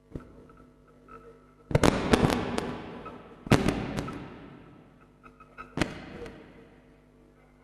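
A series of sharp bangs or knocks with ringing decays: a quick cluster about two seconds in, the loudest single bang about three and a half seconds in, and another near six seconds.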